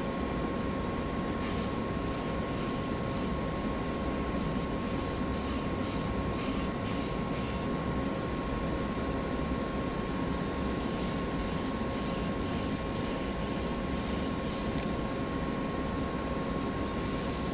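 Spray booth exhaust fan running steadily with a constant hum, overlaid by short, intermittent hisses of Spectraflame paint being sprayed onto a small die-cast car body.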